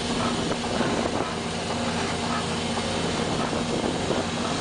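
Crab-fishing boat's engine and deck hauling machinery running steadily as crab pots are hauled aboard, a constant mechanical hum under wash of noise.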